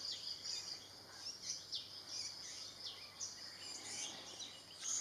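Forest birdsong: many short, high chirps and quick sweeping notes from several small birds, over a steady high-pitched background hum.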